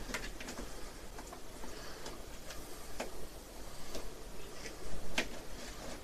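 Rubber refrigerator door gasket being pressed by hand into the door's dovetail groove: scattered, irregular small clicks and taps, the loudest about five seconds in.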